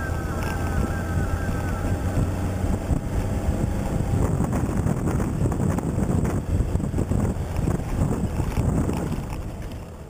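Wind buffeting the camera microphone over the low rumble of a Toyota Hilux 4x4 driving on a rough off-road track. It dies down near the end.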